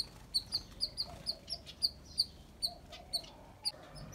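Small aviary bird chirping: a rapid string of short, high-pitched chirps, about three a second.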